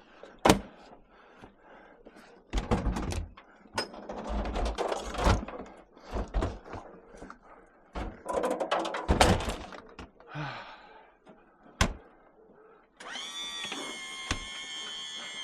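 Scrap metal being handled and loaded: irregular thuds, knocks and clattering. About two seconds before the end, a steady hum with several held pitches starts up.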